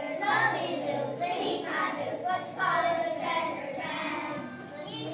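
A child singing a song, with a low accompaniment note that comes and goes underneath.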